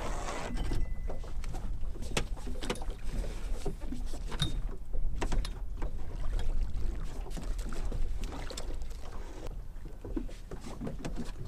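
Wind on the microphone and water lapping against an aluminium jon boat, with scattered knocks and clicks as the rod, reel and landing net are handled while a small sturgeon is landed.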